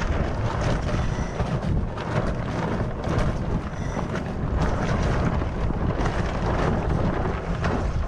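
Steady wind rushing and buffeting the microphone on the deck of a sailing yacht under sail, with no engine running.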